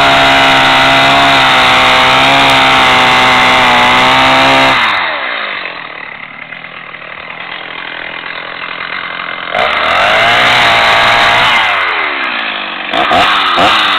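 Chainsaw held at high revs while cutting through a board. About five seconds in it drops back to idle, it is revved up again near the ten-second mark, and near the end it is blipped a few times with the pitch sweeping up and down.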